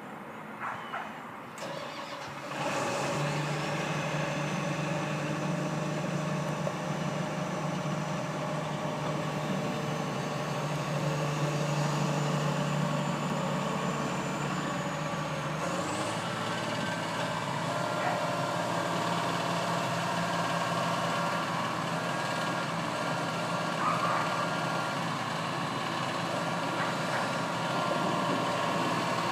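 A heavy-equipment diesel engine starts about two and a half seconds in and then runs steadily, with a thin high whine above it. About halfway through its note shifts and the whine glides up, then it settles again.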